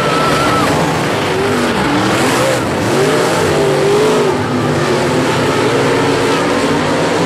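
Dirt modified race car engines running hard around a dirt oval, their pitch rising and falling as the cars work through the turns.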